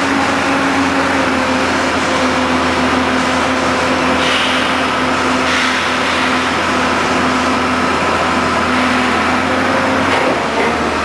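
Rotary drilling rig's engine running steadily, with a held humming tone over a rough mechanical noise and a brief dip about ten seconds in.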